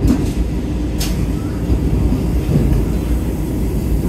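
Running noise of the Vande Bharat Express electric multiple unit heard inside the coach at speed: a steady low rumble, with two sharp knocks about a second apart near the start.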